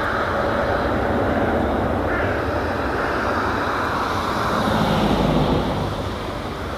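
Boeing 787-8 airliner's Rolls-Royce Trent 1000 jet engines at takeoff power, a steady jet noise that eases slightly near the end.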